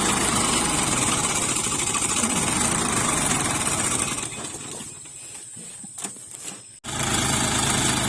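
Sonalika 45 HP tractor's diesel engine running steadily. About four seconds in the sound dies away to a low level with a few faint clicks, then cuts back abruptly to the engine running.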